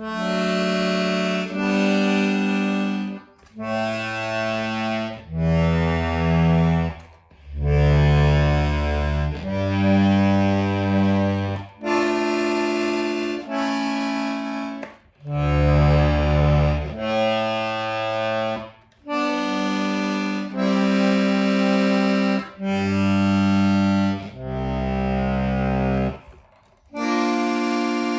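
Hohner Corona II diatonic button accordion, its freshly tuned bass side played: single bass notes and chords, each held for a second or two, one after another with short breaks.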